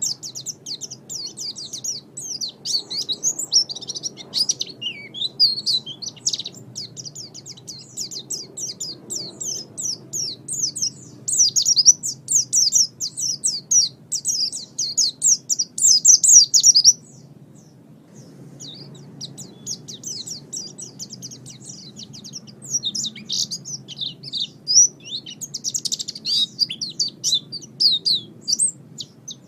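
Small songbirds twittering in a dense, fast run of high chirps, with a pause of about a second partway through before the chirping resumes.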